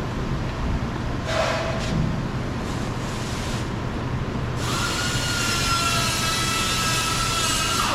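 Cordless drill-driver whirring as it backs out a door trim panel screw: a short trigger pull about a second in, then a steady whine of about three seconds that stops suddenly near the end.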